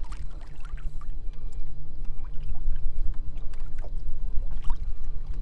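Minn Kota electric trolling motor running with a steady low hum while the boat moves over choppy water, with wind buffeting the microphone and small splashes of water against the hull.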